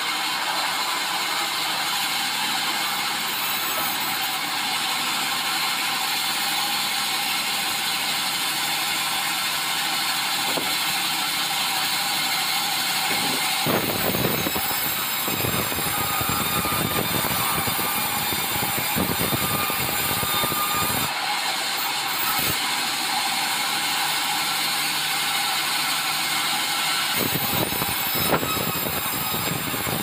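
Large band sawmill running steadily as it saws a red meranti log. The sound fills out lower about halfway through and again near the end.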